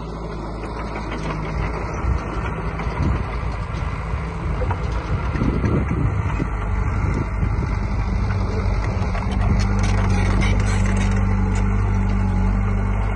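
Komatsu D20P bulldozer's diesel engine running steadily, getting louder from about the middle, with scattered clanks and rattles.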